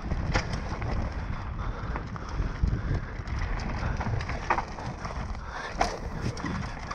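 Mountain bike ridden fast down a dirt forest trail, heard from a camera on the rider: wind buffeting the microphone in a steady low rumble, with the bike's chain and frame rattling in scattered sharp clicks.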